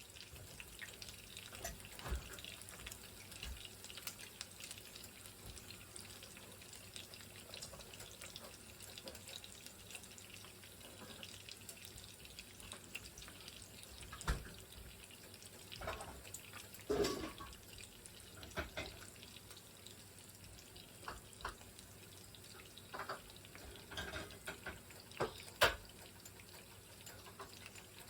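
Quiet kitchen sounds: a faint, steady water-like hiss throughout, with scattered clinks and a few louder knocks of utensils or cookware, the loudest near the end.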